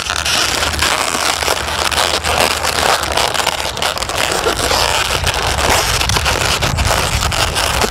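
Latex twisting balloons crackling and rubbing against each other as they are handled and interlaced by hand: a dense run of small crackles over a steady low rumble.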